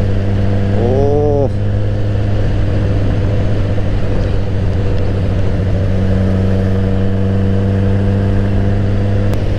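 Suzuki GSX-R1000 K7's inline-four engine running steadily at cruising speed, heard from on board the motorcycle. A brief rising-and-falling tone comes about a second in.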